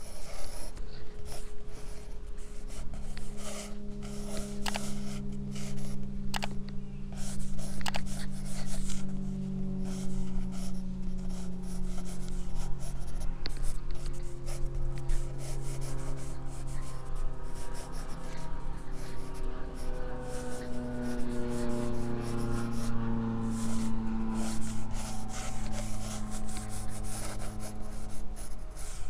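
Pencil scratching and rubbing on drawing paper in many quick, short strokes as a sketch is laid down, with soft held low tones underneath.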